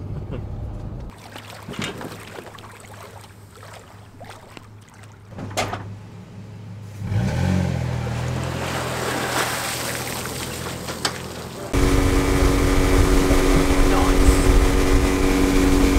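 A sequence of motor sounds: road noise inside a car, then a motor idling from about 7 s in, then from about 12 s in a small skiff's outboard motor running at speed with wind and water rushing past. The last part is the loudest.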